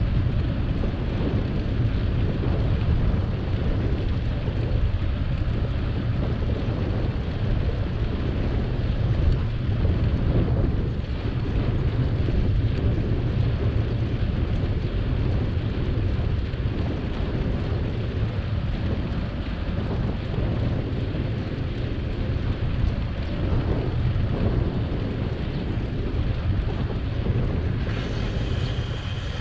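Steady low rumble of wind buffeting the microphone of a camera riding on a moving bicycle, easing slightly near the end.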